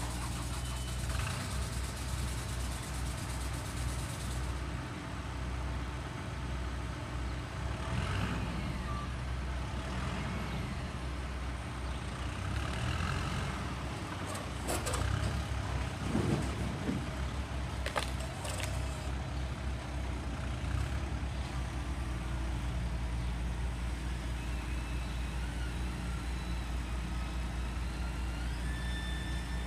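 A heavy engine running with a steady low drone, joined by a couple of sharp clicks about halfway through and thin whining tones that step up in pitch near the end.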